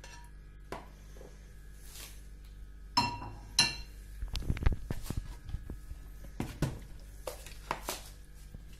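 Kitchen cookware clattering: two sharp, ringing clinks about three seconds in, then duller knocks and a few light taps.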